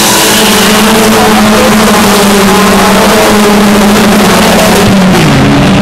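A pack of hatchback stock cars racing on an oval, their engines running hard in a loud, steady drone over a dense haze of noise. The engine note drops in pitch a little after five seconds in.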